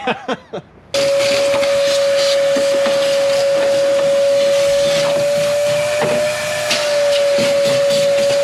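Shop vac switching on about a second in and running with a steady high whine and rushing hiss, with scattered clicks as debris is sucked up. The whine wavers slightly in pitch about six seconds in.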